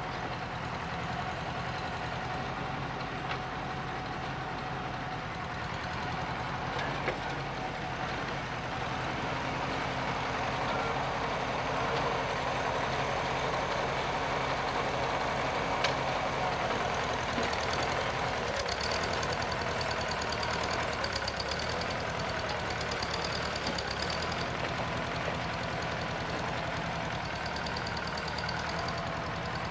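Farmall Super C tractor's four-cylinder engine running steadily under load while it drags a blade through loose tilled dirt. The sound grows louder in the middle as the tractor passes close, then eases back as it pulls away.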